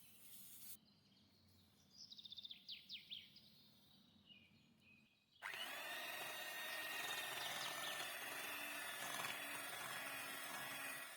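Faint bird chirps, then about five seconds in an electric mixer starts and runs steadily with a high whine.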